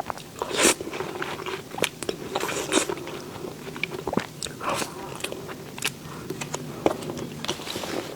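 Close-miked eating of cake and dessert: biting and chewing, with sharp mouth clicks and smacks and short wet bursts every second or so.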